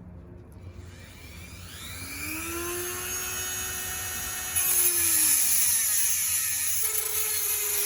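Small high-speed power tool spinning up with a rising whine, then cutting into a wire from about halfway through, a louder, harsher grinding sound while the motor pitch sags under load.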